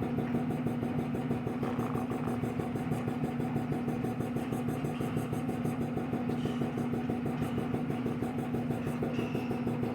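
Steady drone of a running motor, an unchanging hum with a fast even pulse.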